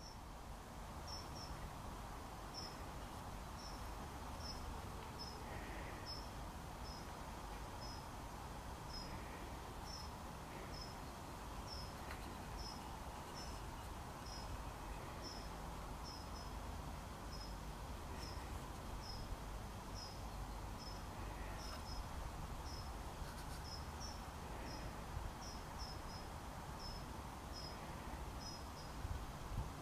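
A cricket chirping: short, high chirps repeated about once or twice a second, over steady background noise.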